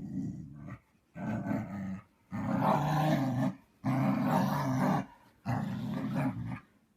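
A husky grumbling: five drawn-out, low, growly vocal grumbles in a row, each about a second long, with short pauses between them.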